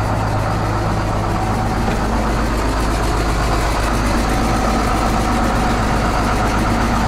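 International DT466 inline-six diesel in an International 4300 truck, idling steadily while it warms up after a cold start.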